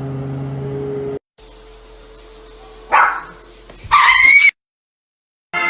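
A dog barks twice, about a second apart; the second is a longer, higher yelp.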